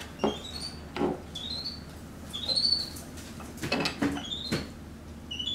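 Capuchin monkey giving about six short, high-pitched rising chirps, one every second or so, with a few soft knocks between them.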